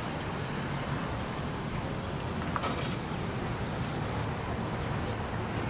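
Steady road traffic: cars driving through a signalled intersection, the noise of their engines and tyres.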